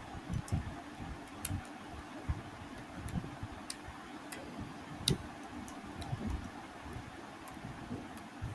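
Scattered, irregular clicks of a computer keyboard and mouse, roughly one every second or so, with soft low thuds, over a steady background hum.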